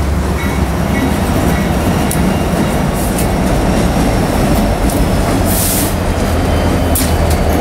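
A lash-up of several CSX diesel locomotives passing close by: a steady, deep engine drone over the rumble of steel wheels on the rails, with a few sharp clicks and a brief hiss about five and a half seconds in.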